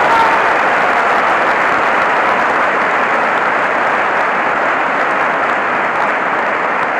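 A large audience applauding, a loud and steady wash of clapping.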